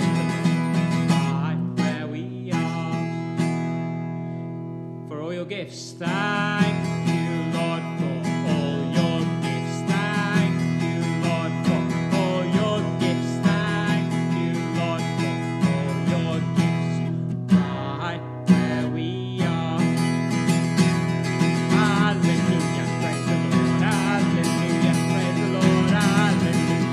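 Strummed acoustic guitar with a man singing along, a lively worship song. About two seconds in the strumming pauses and a chord rings on, fading away, before the strumming and singing pick up again about six seconds in.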